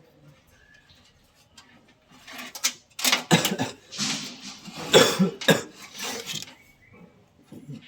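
A person coughing several times in quick succession, starting about three seconds in.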